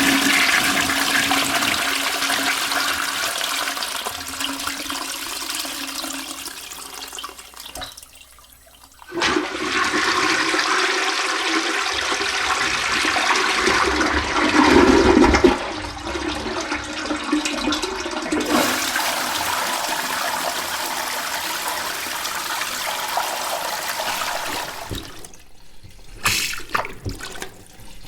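Two toilet flushes in turn. The first rush of water fades out about eight seconds in. A second flush starts a second later, with a deep gurgling surge near the middle, then runs on as steady flowing water. A few small splashes follow near the end.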